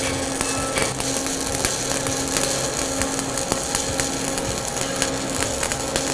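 Electric welding arc crackling steadily, dense and irregular, as a horizontal fillet bead is run along a steel T-joint. A steady low hum runs underneath.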